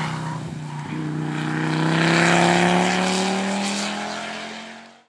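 Fiat Coupé 20V Turbo's five-cylinder turbocharged engine pulling hard under race acceleration as the car drives away. The engine note climbs steadily in pitch, is loudest about halfway through, then fades and cuts off suddenly just before the end.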